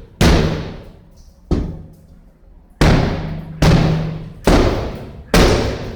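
Heavy hammer blows from skylight replacement work on a roof: six loud bangs about a second apart, each ringing out with a long echoing decay.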